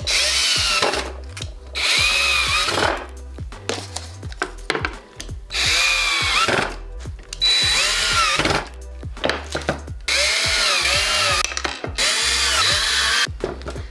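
Cordless drill-driver driving screws through metal shelf-leg frames into bamboo boards, in about six short runs, each whining up and winding down again as the trigger is squeezed and released.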